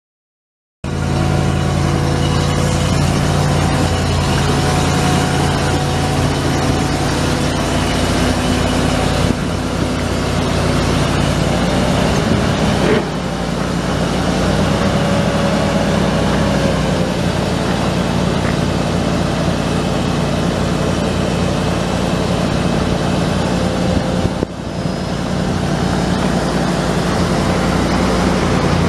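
A 1993 Ford F700 truck's 7.0L gas V8 running steadily at idle, starting abruptly about a second in, with a few sudden changes in level along the way.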